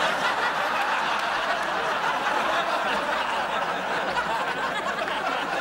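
Studio audience laughing, a long steady wave of crowd laughter set off by a punchline.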